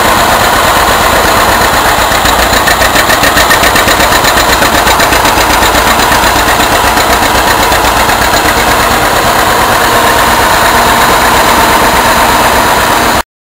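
Tractor engine running loud and steady, with an even, rapid pulsing in its sound. It cuts off suddenly near the end.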